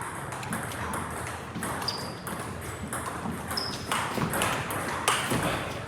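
Table tennis balls clicking repeatedly off rackets and tables in a busy indoor club hall, with two short high squeaks in between.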